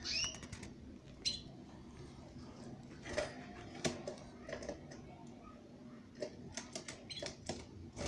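Canaries giving a few short, high, falling chirps in the first second or so, followed by scattered light clicks and taps as the birds move about the cage.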